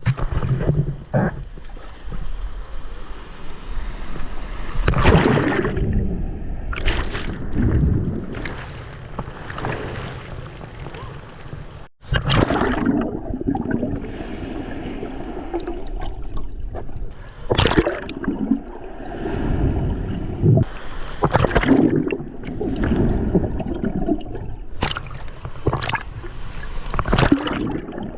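Sea water sloshing and splashing around the microphone in irregular surges, like waves washing over a camera held at the water's surface. The sound drops out abruptly about twelve seconds in, then resumes.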